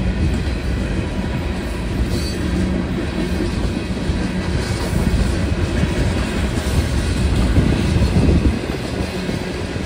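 Freight train cars rolling past a grade crossing: a steady, continuous rumble of steel wheels on the rails.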